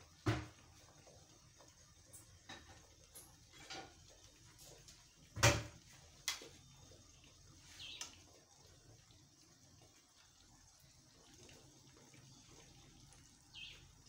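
Egg omelette frying on a stone griddle: a faint steady hiss with a few sharp clicks and pops, the loudest just after the start and about five seconds in. Two short falling chirps, one about eight seconds in and one near the end.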